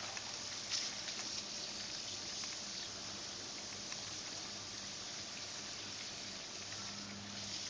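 Thin water jet hissing steadily from a pinhole leak in a garden hose and spattering on the ground and on a young macaque's hands. A faint low hum underneath grows louder near the end.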